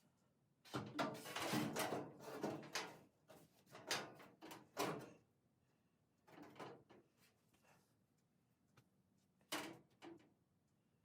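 Early Bronco sheet-metal inner rocker panel being handled and held up against the body: a run of scraping and rattling in the first few seconds, then a few single clunks, the last near the end.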